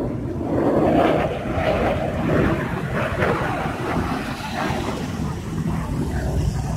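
Distant military jet flying past, its engine noise a steady, fairly loud rumble, with wind buffeting the microphone.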